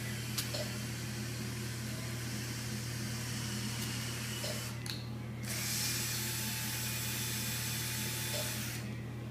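Orthopaedic surgical power drill running in two long runs with a short break just before the middle, as a hole is drilled or a bone screw driven for a TPLO plate, over a steady low electrical hum.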